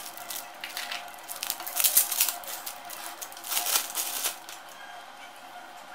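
Clear plastic wrapping crinkling and rustling in irregular bursts as hands pull a USB cable out of it, loudest about two seconds in and again near four seconds.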